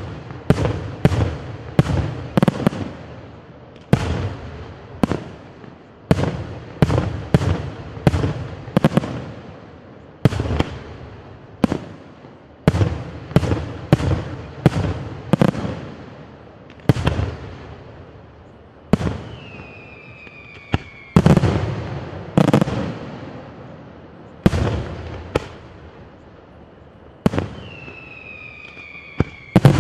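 Aerial firework shells bursting in a rapid series of sharp bangs, about one to two a second, each trailing off in an echo. Twice, a firework whistle sliding down in pitch sounds among the bangs.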